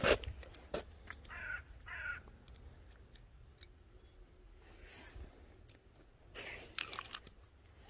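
Light clicks and knocks of a scooter variator's metal ramp plate and roller housing being handled, with one sharper knock at the start. A bird calls twice in the background about a second and a half in.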